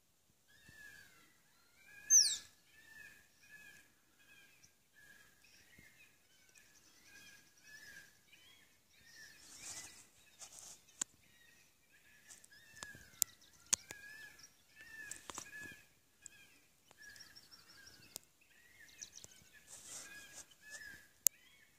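Short, bird-like chirping calls repeating about twice a second throughout, with one loud, high whistle sweeping downward about two seconds in. A few sharp clicks come in the second half.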